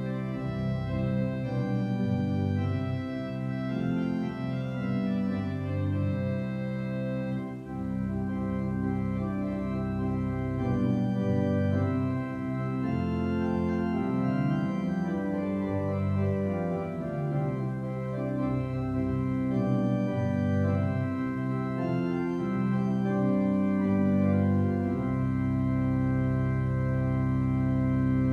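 Church organ playing slow sustained chords, closing on a long held chord near the end.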